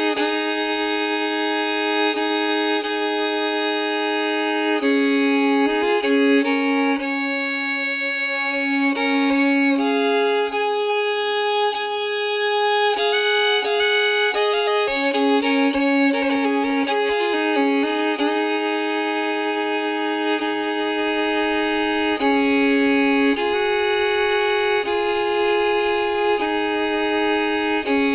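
Background music: a fiddle playing a slow melody, with notes held a second or two each.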